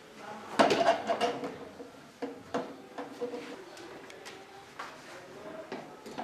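Shoe-cabinet parts being handled during assembly: a quick cluster of light knocks and clicks, then single knocks every second or so.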